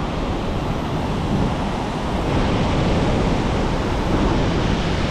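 Large hurricane-driven ocean surf breaking and washing up the beach as a steady rush of noise, with wind on the microphone.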